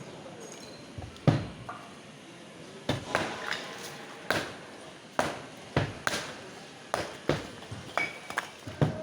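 A series of sharp knocks: a few in the first three seconds, then coming about twice a second.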